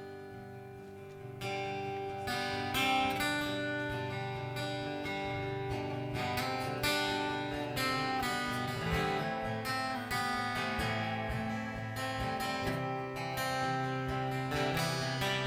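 Live band playing the instrumental intro of a folk song, with acoustic guitar strumming; the strumming comes in more fully about a second and a half in.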